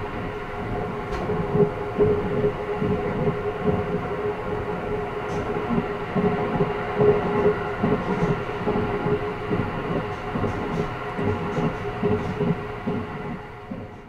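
Electric passenger train running, a steady rumble with an even hum and irregular low thuds, fading out at the end.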